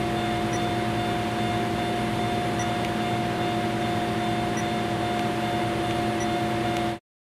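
Steady mechanical hum with several held tones, like a fan or blower running; it cuts off suddenly near the end.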